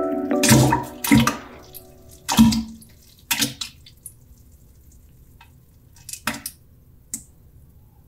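Imitated poop-splash sound effect: a series of about six wet plops and splashes into water, spaced unevenly, the loudest about two and a half seconds in, with fainter drops near the end. A music bed fades out in the first second.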